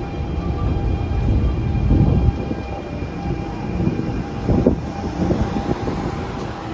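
NJ Transit Arrow III electric multiple-unit train standing at the platform, its onboard equipment running with a steady low hum and several thin, steady whining tones. Brief louder low bumps come about two seconds in and again around four and a half seconds in.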